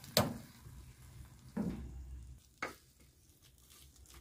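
Hot, thick cocada (coconut cooked in sugar syrup) being tipped and scraped out of an aluminium pot onto a damp stone countertop, with a few knocks of pot and spoon; the loudest knock comes just as it starts.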